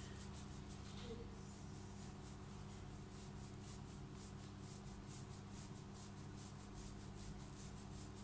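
Fingertips massaging a scalp coated in an oil, baking-soda and cinnamon scrub, rubbing through thick hair: faint, rhythmic scratchy rubbing at about three or four strokes a second, over a steady low hum.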